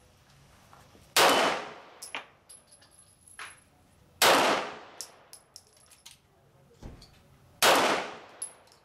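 Three pistol shots about three seconds apart, each with an echoing tail, and smaller metallic clinks between them.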